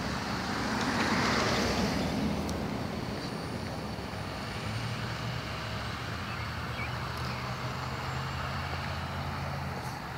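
Road traffic on a residential street: a car passes with a swell of tyre and engine noise about a second in, then a steady low engine hum as another vehicle drives close by.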